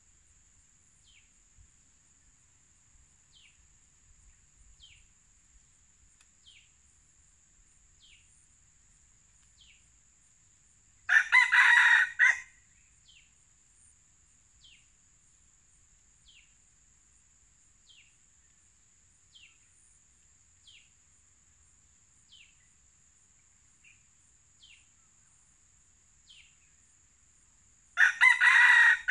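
Red junglefowl rooster crowing twice, about eleven seconds in and again near the end, each crow a little over a second long.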